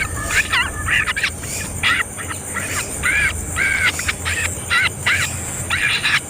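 Birds calling: a string of short, harsh calls, about two a second.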